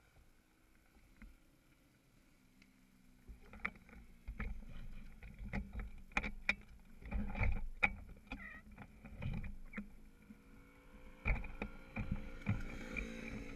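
Irregular knocks and low rumbling picked up by the camera mounted on a stationary pit bike, starting a few seconds in, over the faint steady hum of motorcycle engines running on the circuit.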